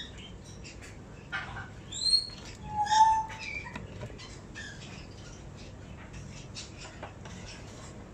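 Baby Indian ringneck parakeet chick giving short squawking and chirping calls while being syringe-fed, the loudest about two and three seconds in, then softer scattered chirps.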